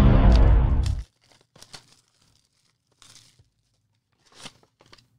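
A loud, booming music sting cuts off about a second in. It is followed by faint, intermittent crinkling and tearing of trading-card packaging as the next box is opened.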